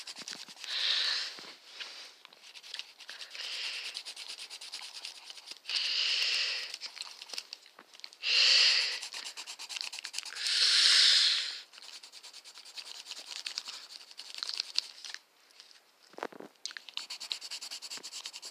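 Coloured pencil scribbling rapidly back and forth on paper while shading in a drawing, a fine scratchy rubbing. Four louder rushing swells about a second long rise above it, two early and two in the middle.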